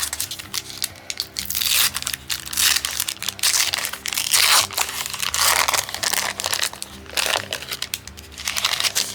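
Plastic wrapper of a pack of holofoil cards crinkling and tearing in repeated rustles as it is opened by hand, over quiet background music.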